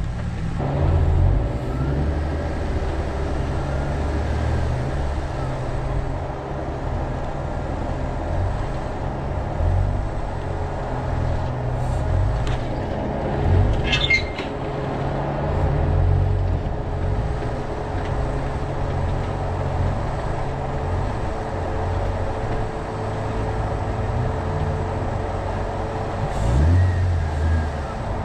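A 2013 Jeep Wrangler Unlimited Rubicon's 3.6-litre V6 engine running at low speed while crawling over rock, a low rumble that rises and falls unevenly. There is a brief high squeak about halfway through and a short rev near the end.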